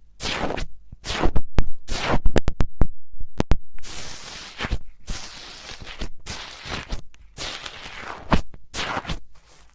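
Slime being squished and poked by hand. A run of quick sticky pops and clicks comes in the first few seconds, then longer smeared squishing sounds follow.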